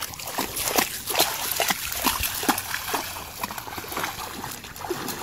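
A dog wading through shallow water, its legs splashing and sloshing in quick, irregular slaps.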